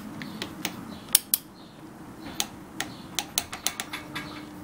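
Torque wrench ratcheting as it tightens a motorcycle fork top bolt to 20 ft-lb. A loud pair of clicks comes about a second in, then a run of quicker ratchet clicks, several a second, from about two and a half seconds on.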